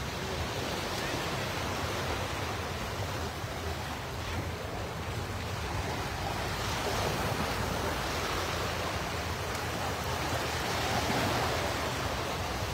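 Small sea waves breaking and washing up a sandy beach: a steady wash of surf that swells slightly louder now and then.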